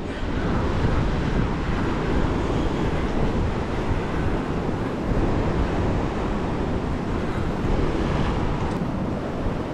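Steady wind buffeting the microphone over the wash of ocean surf.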